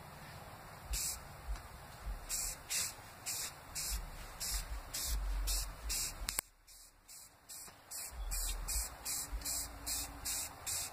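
Aerosol spray paint can hissing in short, repeated bursts, about two to three a second, laying down a light coat. A sharp click about halfway through, then a short pause before the bursts resume.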